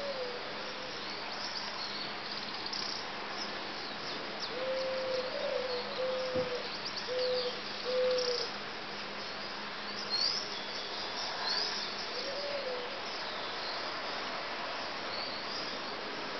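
Birds calling: a run of short, low hooting notes about five to eight seconds in, a few more single ones later, and scattered high chirps, over a steady hiss.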